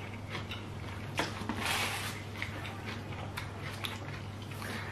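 Small clicks and a brief rustle of people eating pizza at a table, handling food and dip pots, over a steady low hum.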